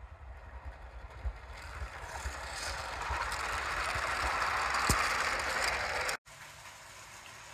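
Motorised LEGO freight train running on plastic track, its wheels clicking and rattling. It grows louder as it approaches and passes close by, then cuts off suddenly about six seconds in.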